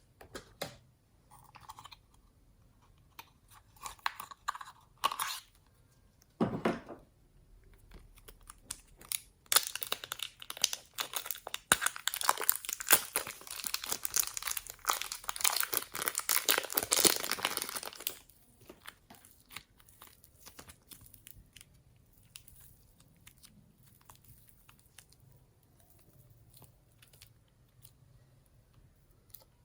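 Slime being squeezed and worked by hand: a few short squelches and clicks, then a dense run of crackling and popping lasting about eight seconds, then sparse faint clicks.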